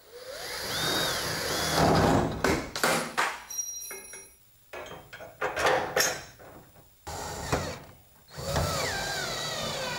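Cordless drill boring through a pickup's steel bed rail through the rack's mounting brackets, then driving in the mounting bolts, starting and stopping in several short runs.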